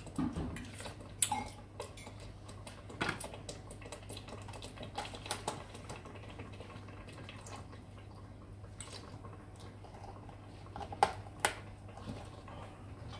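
Scattered clinks and knocks of kitchenware against a stainless steel pot and stovetop as milk from a carton is poured into pumpkin soup; the sharpest knocks come about a second in and twice near the end. A steady low hum lies underneath.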